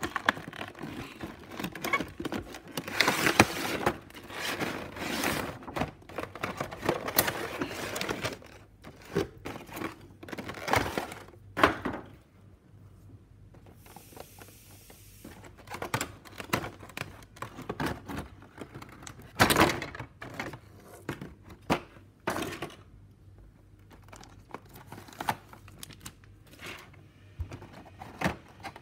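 Cardboard box and clear plastic blister tray being handled: sliding, rustling and crinkling of the packaging for the first several seconds, then scattered plastic clicks and taps.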